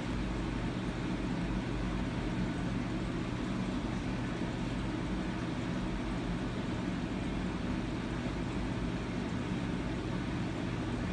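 Steady background noise: a low rumble and hum with an even hiss above it, and no distinct events.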